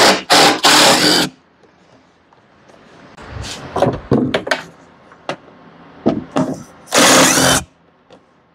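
Cordless impact driver running in short bursts as it backs screws out of the plastic engine cover of a Stihl backpack blower: a long burst at the start, a few shorter ones in the middle, and another loud burst near the end.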